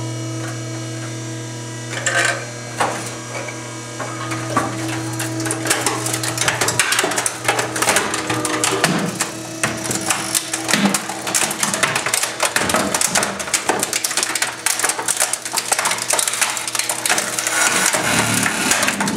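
Trash compactor ram crushing a Compaq Presario computer tower. A steady machine hum runs throughout, with a few clicks early on. From about six seconds in comes dense, irregular crackling, popping and snapping as the sheet-metal case and plastic parts buckle and break.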